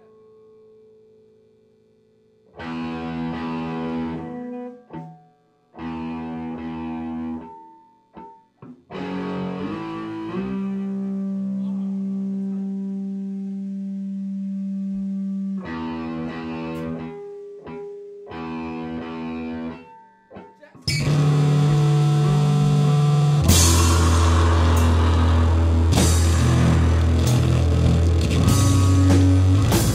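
Live rock band: an electric guitar through distortion plays a run of stop-start chords with short gaps, holding one chord for several seconds. About twenty seconds in, the full band comes in loud, with drums and cymbals crashing over heavy bass.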